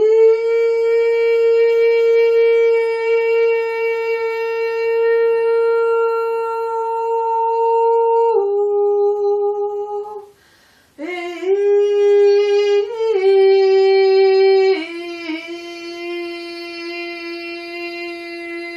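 A woman's voice singing long wordless held notes: one note held for about eight seconds, stepping slightly lower, a short breath about ten seconds in, then a new phrase that steps down through a few notes to a long, lower held note.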